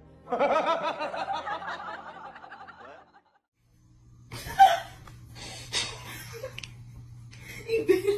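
A wheezy, snickering laugh for about three seconds, stopping suddenly. After a brief silence come quieter, scattered sounds, with one short louder sound about four and a half seconds in.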